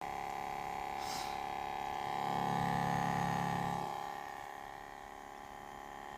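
Ematic DVD player making a steady high-pitched whine, joined by a deeper hum that swells and fades about two to four seconds in.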